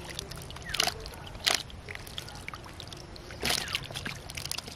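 Wet splashes and slaps of live fish flapping as they are picked out of a hoop net trap, three short bursts with the last one longer, about three and a half seconds in.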